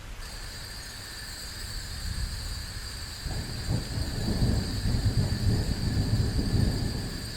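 Thunder rumbling low and deep, building from about three seconds in and easing off near the end, over steady rain. A steady high-pitched hum sets in suddenly right at the start and carries on underneath.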